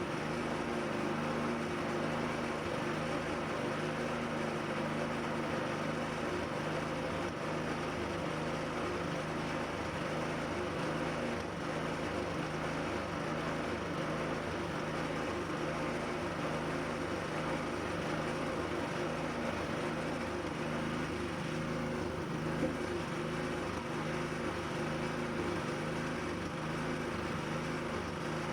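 A motor running steadily: an even, low hum with several steady tones and no change in speed.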